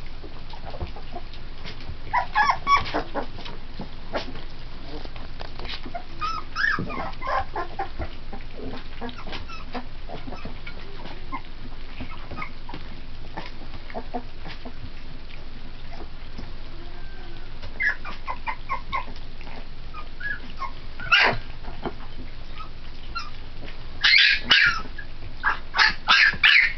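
Three-week-old pit bull puppies squeaking and whimpering in short high-pitched cries as they crowd a plate of puppy formula, with a louder run of cries near the end. Soft wet lapping and smacking clicks run underneath.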